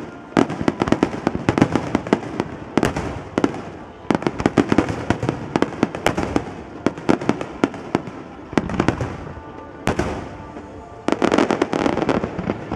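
Aerial firework shells bursting in rapid, overlapping volleys: a dense barrage of booms and crackling. It eases briefly around ten seconds in, then another dense barrage follows.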